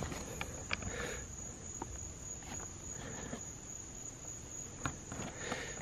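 Night insect chorus: one steady high-pitched trill running on unbroken, with a few faint scattered clicks and taps over it.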